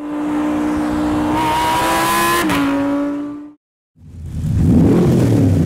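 High-revving supercar engine with a steady, high, whining note that rises slightly and is cut off suddenly. After a half-second gap a deeper, rougher engine note swells up and holds, loud.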